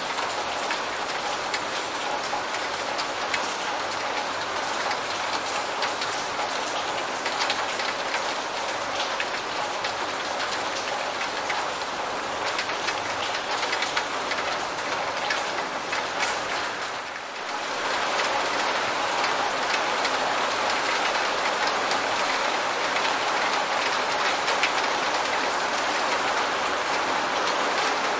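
Steady rain falling, a dense patter of drops hitting a surface. The sound dips briefly about two-thirds of the way through, then carries on slightly louder.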